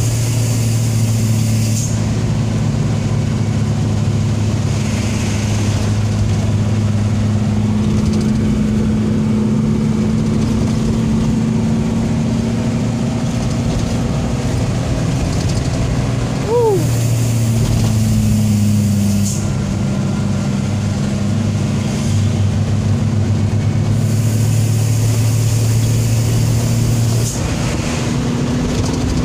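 Mitsubishi Fuso truck's diesel engine running steadily with road noise, heard from inside the cab while driving. The engine pitch dips a little past halfway and climbs again near the end, and a brief falling squeak sounds just past halfway.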